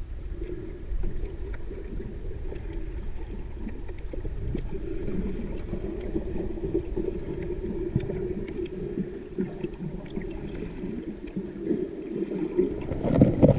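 Muffled underwater ambience picked up by a submerged camera: a steady low rumble of moving water with scattered faint clicks, growing louder near the end.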